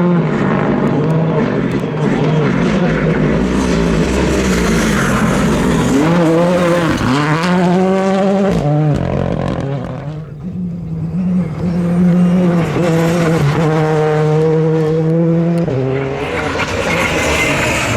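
Rally car engine at racing revs, its pitch climbing and dropping sharply through gear changes, with a brief lull about ten seconds in before it pulls hard again.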